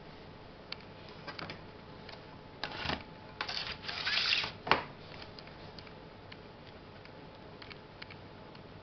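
Thin clear plastic tray of sphagnum moss being handled and moved: a couple of seconds of crackling plastic rustle a few seconds in, ending in one sharp click, with a few faint clicks around it.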